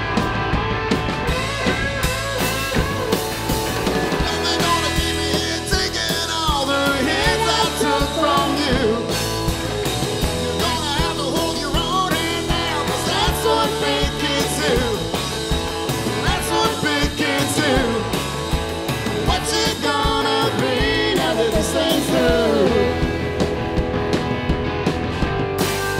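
Rock band playing an instrumental passage: a hollow-body electric guitar with bending notes over electric bass and drum kit.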